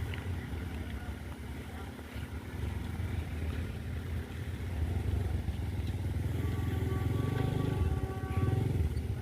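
Diesel locomotive of an approaching passenger train, a low engine rumble with a fast pulse that grows louder over the second half. About six and a half seconds in, a steady multi-note tone, typical of a locomotive horn, is held for about two and a half seconds.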